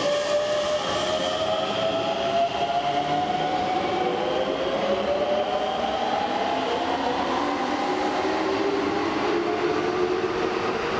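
Hokuso 7300 series electric train pulling out of an underground station, its VVVF inverter and traction motors giving a whine in several pitches that glide upward as it accelerates, over a steady running rumble.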